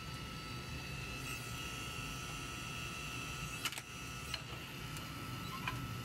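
Electric log splitter's motor running with a steady hum and whine, while a few sharp knocks of split oak firewood pieces being stacked onto a woodpile sound in the second half.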